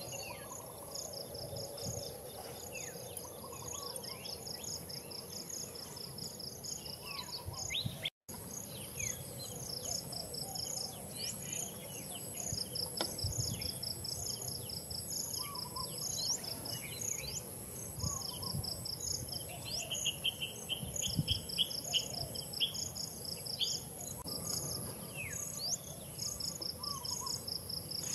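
Forest insects chirping in long, evenly pulsed trains over a constant high-pitched whine, with birds giving short falling chirps here and there. The sound cuts out for an instant about eight seconds in.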